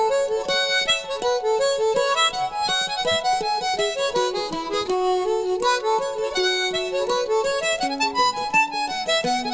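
Background music: a sustained melody line over quick, evenly plucked notes.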